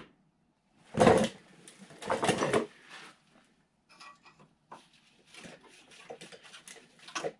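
A hooded sweatshirt brushing over the microphone twice, loudly, about a second in and again around two seconds. Then faint scrapes and light taps as gloved fingers handle the freshly ground pinch-weld seam and plastic fender liner in the wheel well.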